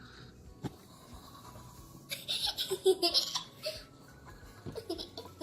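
A child laughs in a short burst of rapid giggles, starting about two seconds in and lasting under two seconds.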